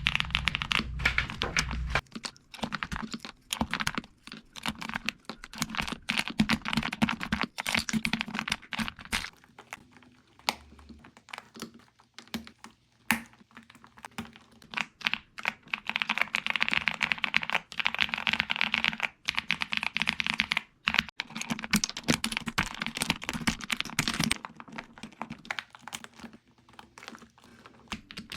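Typing on a Galaxy 65 mechanical keyboard fitted with XVX Crystal Jelly OEM-profile keycaps: rapid runs of key clicks and clacks, thinning out for a few seconds in the middle and again near the end.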